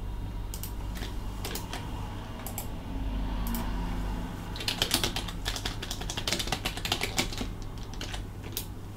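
Typing on a computer keyboard: a few scattered keystrokes early, then a quick, dense run of keystrokes through the second half.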